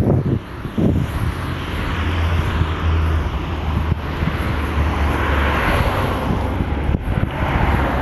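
Outdoor ambience: a steady low rumble with a rushing noise that swells and peaks about five to six seconds in, with wind on the microphone.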